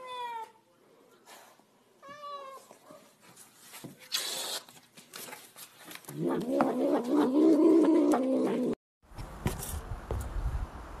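Tabby cat meowing twice with short falling calls, then letting out a loud, low yowl that lasts nearly three seconds.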